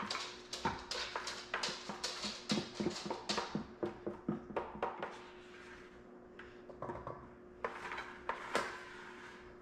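Scraping and knocking inside a large plastic bucket as the last of the food is worked out of it: quick clicks for the first three or four seconds, then a few scattered knocks. A steady low hum runs underneath.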